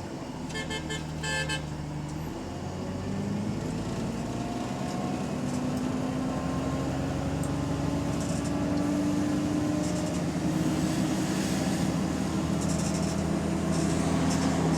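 Diesel bus engine and drivetrain pulling away and slowly gathering speed, its tone rising gradually; the uploader says the bus is in limp mode with a faulty turbo. Two short bursts of electronic beeping sound in the first couple of seconds.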